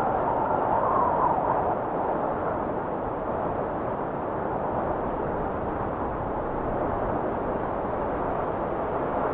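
Wind blowing in a steady rush, swelling briefly about a second in.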